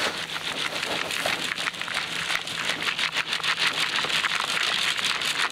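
A bait riddle being shaken over a bucket to sieve worms out of their soil: loose earth rattles and patters through the mesh in a dense, continuous stream of small ticks and rustles.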